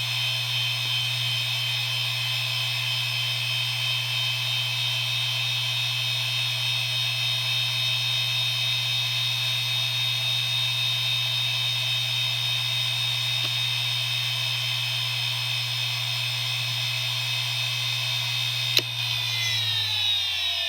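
IBM Deskstar 120GXP 7200 rpm hard drive running at full speed, with a steady low hum and a high, multi-toned whine from its bad spindle bearings. Near the end there is a single sharp click, and then the pitch starts to fall as the drive spins down.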